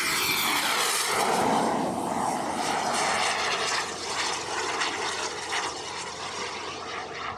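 Jet turbine of a large radio-controlled F-16 model making a fast low pass, its whine dropping in pitch as it goes by. It then carries on as a steady rush that slowly fades as the jet climbs away.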